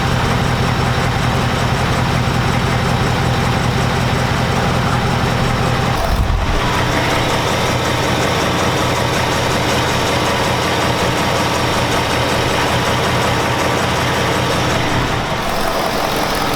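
Ford Mustang GT's 5.0-litre Coyote V8 idling steadily, with no typewriter tick to be heard; the owner credits Pennzoil 5W-30 full synthetic oil with a Rislone additive for the cure. The low engine note changes about six seconds in and again near the end.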